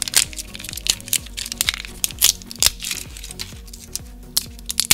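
A hard plastic toy capsule being twisted and worked open in the hands, giving irregular sharp clicks, over steady background music.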